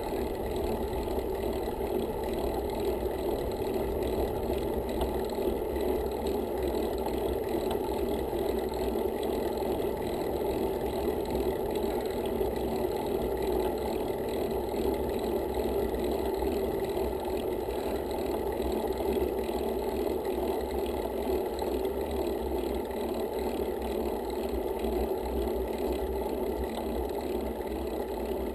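Steady rush of wind and tyre noise from a road bike moving along the road, muffled, with most of the sound low and little above.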